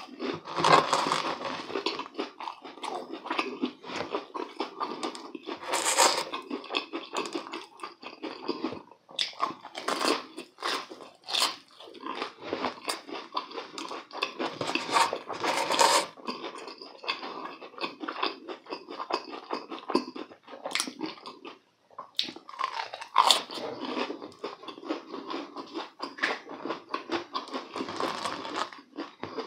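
Close-miked chewing and crunching of deep-fried breadcrumb-crusted croquettes, with many crisp crackles of the crust between wetter chewing, and a brief pause about two-thirds of the way through.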